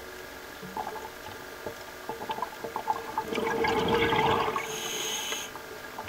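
Scuba regulator underwater: a gurgling rush of exhaled bubbles starting about three seconds in and lasting over a second, followed by a short high hiss. Faint scattered clicks sound throughout.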